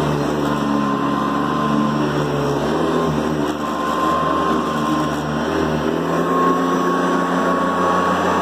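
Hoover Decade 800 upright vacuum cleaner running on its low speed, motor and brush roll going with a steady high whine over the motor's hum; the pitch shifts slightly about six seconds in.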